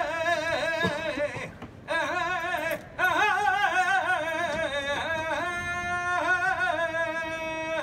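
A man singing a saeta unaccompanied, in Holy Week flamenco style. One voice with a heavy, wavering ornamentation on long held notes, breaking briefly for breath twice, then holding a long note near the end.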